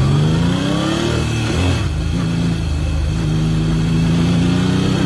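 1980 Yamaha XS850's three-cylinder engine pulling under way: the engine note rises, drops back about two seconds in as a gear is changed, then holds steady at moderate revs.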